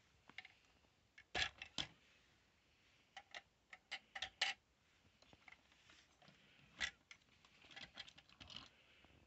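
Hollow plastic robot dog toy being handled: scattered sharp clicks and knocks of its plastic shell and legs, the loudest a pair about a second and a half in and a quick run around four seconds in.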